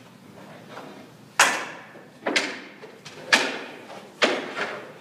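A series of sharp knocks, about one a second, starting about a second and a half in, each ringing out in a large echoing rink.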